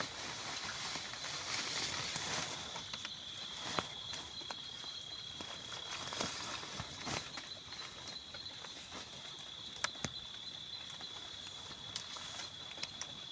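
Outdoor ambience: a steady, thin, high-pitched whine over a soft hiss, with scattered sharp clicks and taps.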